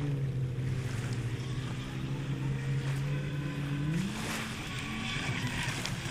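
Brushless motor of a WLtoys WL913 RC speed boat running on a 4S lipo: a steady pitched hum that rises in pitch about four seconds in.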